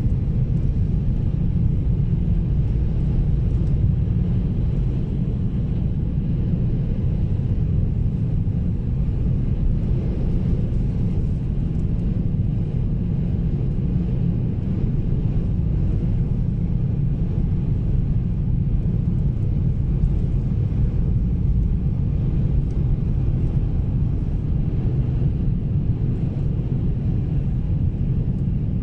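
Steady low rumble of a car driving, heard from inside the cabin: engine and tyre noise on a snow-covered road.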